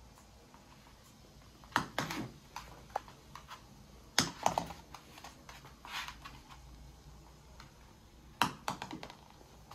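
Several short bursts of quick clicks and taps as a toy poodle plays with a small rubber ball on a laminate floor: its claws and the ball knocking on the hard floor.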